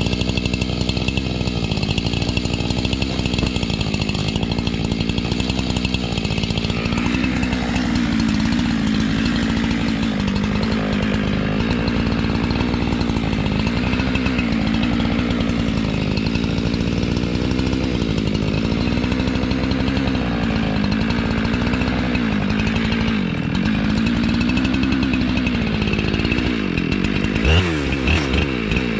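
Chainsaw in an Alaskan chainsaw mill, ripping a log lengthwise into boards. The engine runs at full throttle under load, its pitch sagging and recovering every couple of seconds. Near the end the engine drops in pitch, then revs back up.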